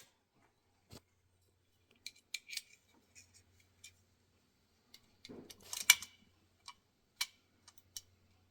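Small metal carburetor parts being handled on a workbench: scattered light clicks and taps, with a quick clattering run of clinks about five to six seconds in, the loudest moment.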